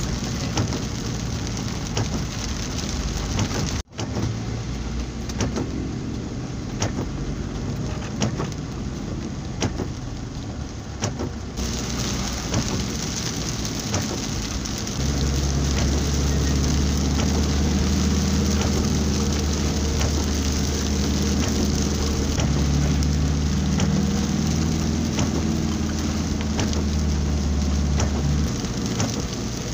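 Heavy rain drumming and pattering on a moving vehicle's roof and windshield, heard from inside the cabin. The engine's low drone underneath grows stronger about halfway through, and the audio cuts out for an instant about four seconds in.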